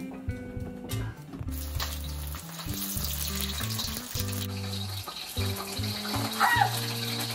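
Marinated steelhead cubes frying in hot vegetable oil in a wok: a sizzle that starts about a second and a half in and settles into a steady hiss, over background music with held low bass notes. A brief high squeal that rises and falls comes about six and a half seconds in.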